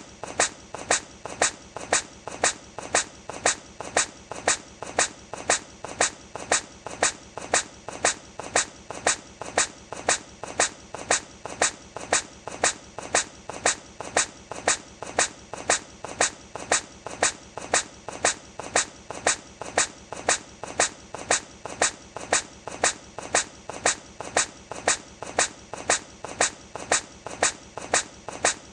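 A hedgehog's short, sharp sneeze, repeated over and over at an even pace of about three sneezes every two seconds, each with a smaller sound just before it.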